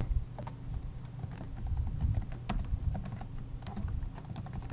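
Typing on a computer keyboard: uneven bursts of key clicks, with a quick run of keystrokes about three and a half seconds in, over a low steady hum.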